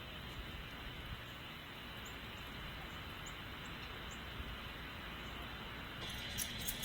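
Steady outdoor background noise with a few faint, short high chirps through the middle, and a run of sharp clicks or knocks starting near the end.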